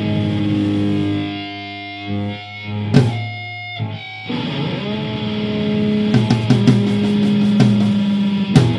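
Distorted electric guitar holding ringing chords that fade out about two seconds in. A sharp hit comes about three seconds in, then a new sustained chord, with drum hits joining from about six seconds: the opening of a punk rock cover song.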